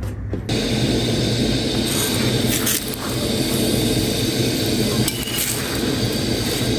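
Chapati frying on a flat iron griddle over a gas burner: a steady sizzle that starts about half a second in, with a metal spoon clinking and scraping on the pan a few times.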